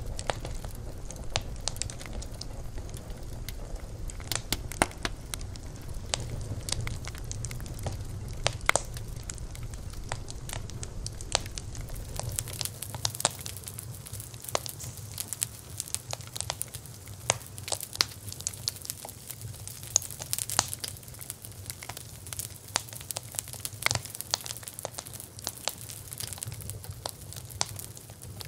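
Wood fire crackling, with many irregular sharp pops. A low rumble under the crackle drops away about halfway through, and the pops turn brighter and thinner.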